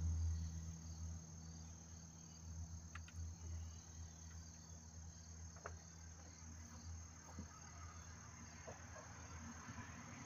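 Faint insects chirping in a steady repeating rhythm, over a low hum, with a few small clicks scattered through.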